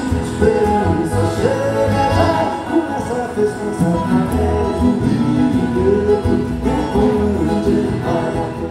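Live Brazilian sertanejo band playing: a man singing over acoustic guitars, accordion and upright bass.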